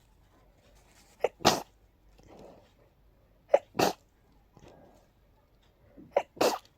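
A person sneezing three times in a row, about two and a half seconds apart, each sneeze a short sharp catch followed at once by a louder, longer wet burst. The sneezing is brought on by a pollen allergy.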